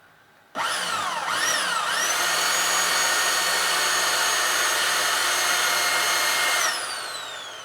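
Electric drill fitted with a 4 mm bit, drilling out a rivet on a washing machine wash motor. It starts about half a second in, its pitch dips and climbs twice as the trigger is worked, then it runs at a steady high whine for about five seconds. Near the end it is released and winds down with a falling pitch.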